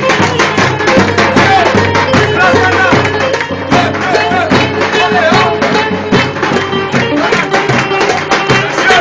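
Middle Eastern folk music with fast, steady percussion under a wavering melody line.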